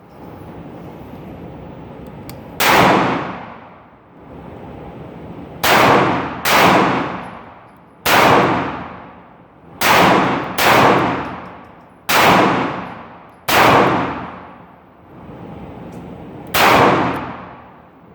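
Taurus 85 .38 Special revolver firing nine shots at uneven intervals, each a sharp report followed by a long, fading echo.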